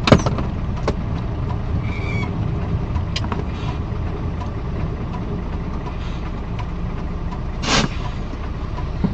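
Steady engine and road rumble of a moving vehicle, with a sharp knock right at the start, a few fainter clicks, and a short hiss about three-quarters of the way through.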